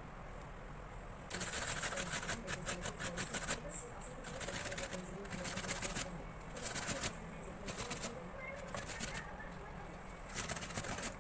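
Peeled apple being grated by hand on a metal box grater: runs of quick rasping strokes, starting about a second in, with short pauses between runs.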